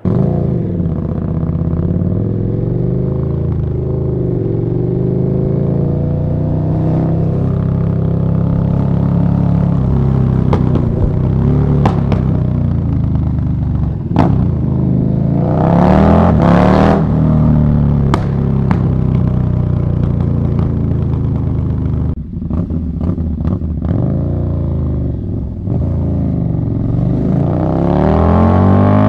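KTM 1290 Super Duke R's V-twin engine, with an Austin Racing V3 150 mm exhaust, heard from the rider's position while riding, its note rising and falling with throttle and gear changes. The revs rise steeply about halfway through and again near the end.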